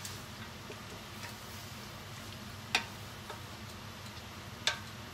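Wooden spatula stirring stir-fried rice noodles and carrots in a stainless steel pot, knocking sharply against the pot a few times, the two loudest knocks about two seconds apart near the middle and near the end, over a steady low background.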